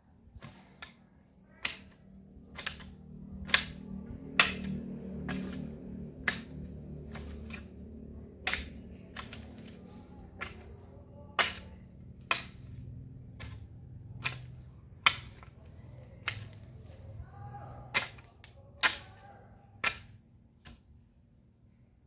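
Hoe blade chopping into hard ground and weeds: about twenty sharp strikes, roughly one a second, over a low rumble in the background.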